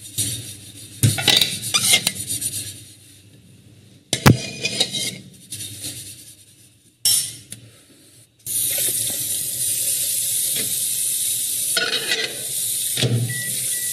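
Dishes being washed by hand at a kitchen sink: plates and steel cups clinking and knocking. From about eight seconds in a tap runs steadily, with a couple more knocks near the end.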